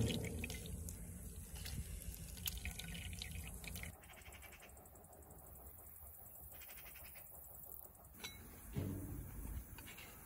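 Faint water sounds, dripping and splashing, with scattered small clicks that die down after about four seconds and a soft thud near the end.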